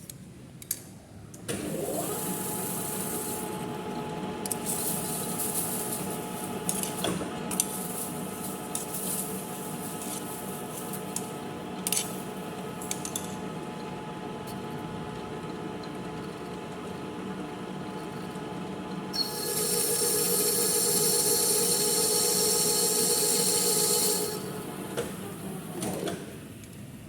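Manual metal lathe spinning up about a second and a half in and running with a steady pitched hum, the cutting tool scraping on the steel workpiece. A louder, high-pitched cut rings out for about five seconds near the end, then the lathe spins down.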